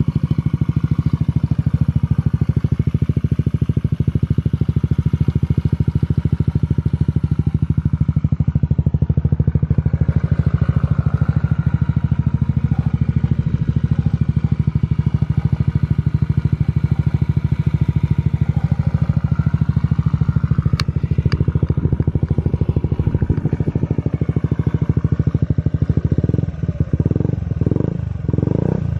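Stretched 2022 Honda Ruckus's single-cylinder four-stroke engine idling steadily through an aftermarket exhaust, its low note wavering unevenly for the last few seconds.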